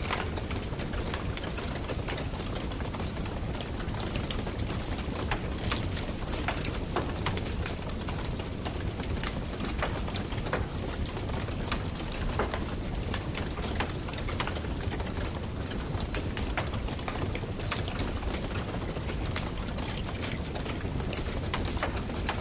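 Wood campfire burning: a steady hiss and rush with frequent irregular crackles and pops.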